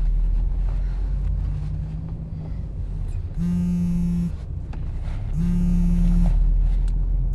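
Mobile phone going off with an incoming call: steady one-pitch pulses about a second long, two seconds apart, over the low engine and road hum inside a taxi.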